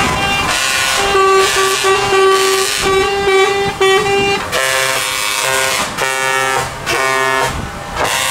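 Truck air horns blown in a series of blasts from a passing convoy of trucks. One horn sounds on and off through the first half, then a different, lower-pitched multi-tone horn takes over in several shorter blasts.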